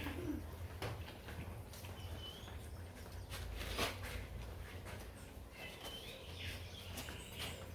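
Faint bird chirps, two short high calls, over a low steady hum with a few light knocks and clatter.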